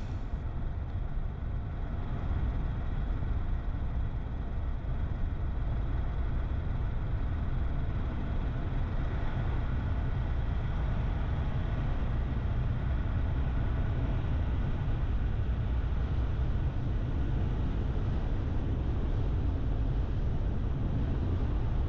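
Camper van driving along a paved road: a steady deep rumble of engine and tyres on the road surface, unchanging throughout.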